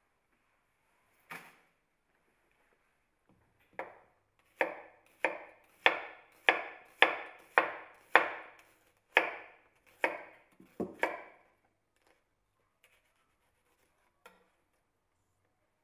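Kitchen knife slicing an onion into rings on a cutting board: about a dozen sharp knife strokes onto the board, a little under two a second, starting about four seconds in and stopping about eleven seconds in, after a single knock earlier.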